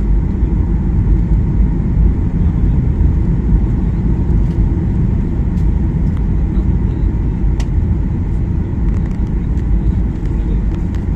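Steady low rumble of an airliner's engines and rushing air, heard inside the passenger cabin, with a few faint clicks.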